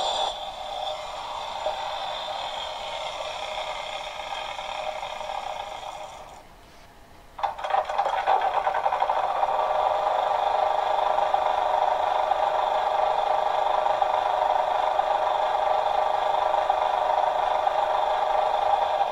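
Recorded function sounds from the ESU sound decoder in a Liliput H0 model of the DB BR 704 tower railcar, heard through the model's small loudspeaker. An angle-grinder sound dies away, and about seven seconds in a diesel generator sound starts suddenly and runs steadily.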